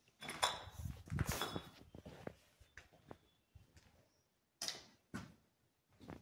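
Footsteps crunching and scuffing over rubble and plaster debris on a bare floor, in irregular clatters, busiest in the first second and a half and again near the end.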